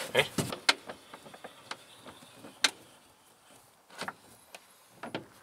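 Scattered sharp clicks and knocks of hands working at an aluminum square-tube hold-down bar on a snowmobile ski. There is a quick cluster in the first second, then single knocks about a second apart.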